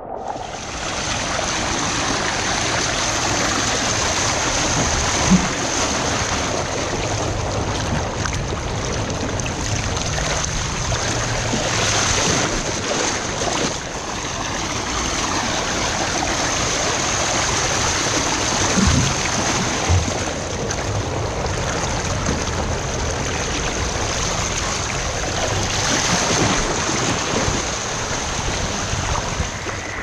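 Steady rushing and splashing water from water slides and a shallow splash pool, heard close up, with a few brief louder splashes.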